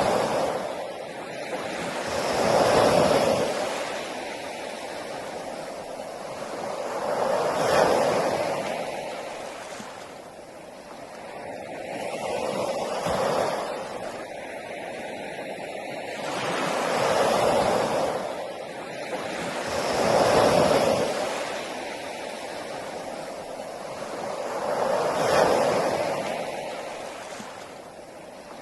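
Sea waves breaking on a beach, the surf swelling and falling away again every three to five seconds.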